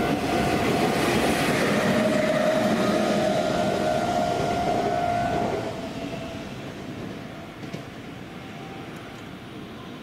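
An electric train running past over a level crossing, a loud rushing rumble of wheels on rails, with the crossing's electronic warning bell ringing over it. About five and a half seconds in, the train noise and the bell die away together, leaving a quieter steady background.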